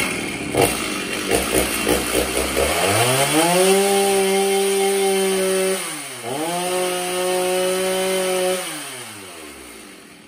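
Stihl MS 390 chainsaw's two-stroke engine, warm, running through its stock muffler. It idles unevenly for a couple of seconds, then is revved to full throttle twice, each rev held about two seconds with a brief drop in between, and falls back toward idle near the end.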